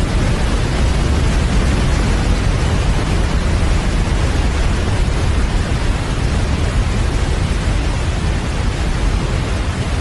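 Large waterfall: a loud, steady rush of falling water with a deep rumble underneath.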